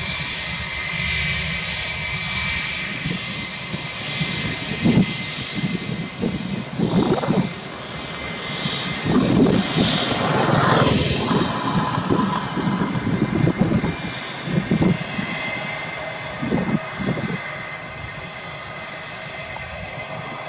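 Jet airliner's twin turbofan engines running on the ground, a steady high whine under a roar that swells and fades in irregular surges.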